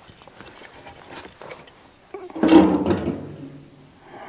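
Light rubbing and small clicks of metal parts being handled against the steel oil-tank body of a pig roaster. About two seconds in comes one loud knock, and a low ringing fades out over about a second and a half.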